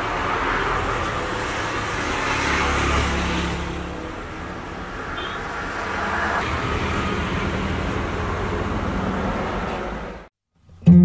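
Road traffic noise: a steady rush of passing cars, with a heavier vehicle's low rumble about two to four seconds in. It cuts off just after ten seconds.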